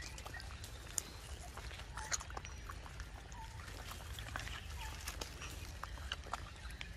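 Macaques feeding and moving close by: a few short, soft calls among scattered sharp clicks and rustles.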